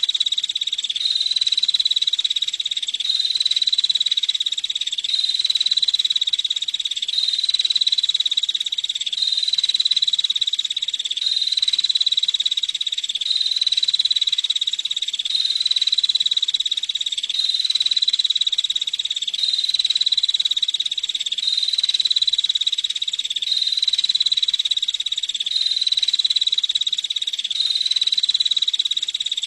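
Female prenjak (prinia) giving a continuous rapid, high-pitched trill that swells slightly about every two seconds.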